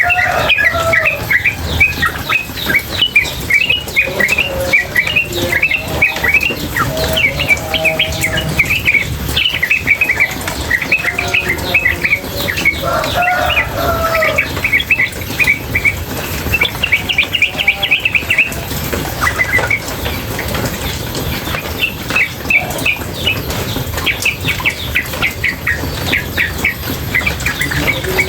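Female yellow-vented bulbul (trucukan) chattering nonstop in rapid runs of short chirps, with some lower warbled notes, over the steady rush of running water.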